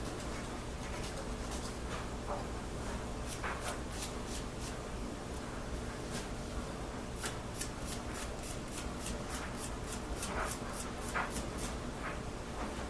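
Hand sanding a small piece of wood with sandpaper: short, irregular scratchy strokes, over a faint steady low hum.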